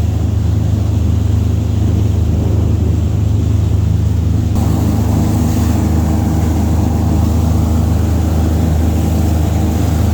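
A motor engine running steadily with a low, even drone. About halfway through, a broader hiss joins in over it.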